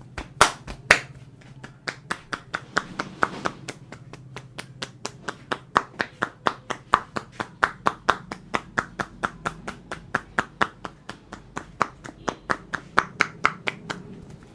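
A barber's hands giving a percussive massage: a long, steady run of sharp hand slaps on the client, about three or four a second, with a few louder strikes near the start.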